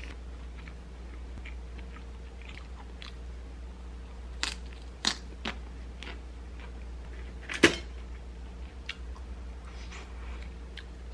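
Eating sounds: a wooden spoon and chopsticks clicking and scraping on a parchment-lined wooden plate, with chewing in between. One sharp knock about two-thirds of the way through is the loudest, over a low steady hum.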